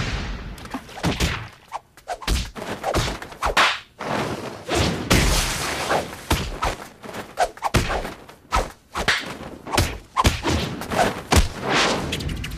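Anime hand-to-hand fight sound effects: a fast, uneven string of punch and block impacts mixed with swishes of moving limbs, several hits a second.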